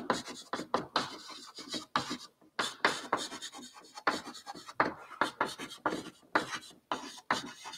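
Chalk writing on a chalkboard: a quick, irregular run of taps and scratching strokes as each letter is written.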